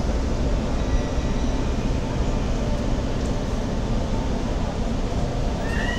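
Steady low rumble and hiss inside a MetrôRio subway car. Near the end a steady two-tone electronic chime starts, the door-closing warning.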